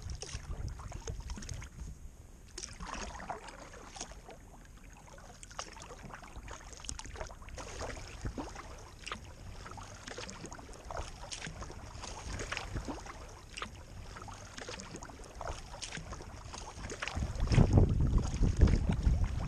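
Kayak paddling on open water: a run of small splashes and drips from the paddle. Wind buffets the microphone near the end.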